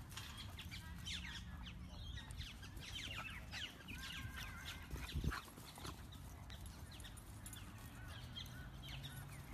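Many faint, short, high-pitched animal chirps and squeaks, scattered throughout, over a low steady rumble.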